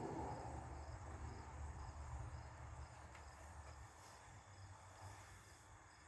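Distant thunder rumbling low and fading away over the first few seconds, with crickets chirping faintly throughout.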